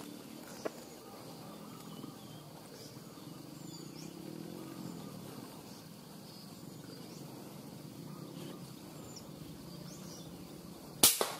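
Quiet rural ambience with faint bird chirps and a faint low hum that swells and fades around the middle, then near the end a single sharp, loud hunting-gun shot.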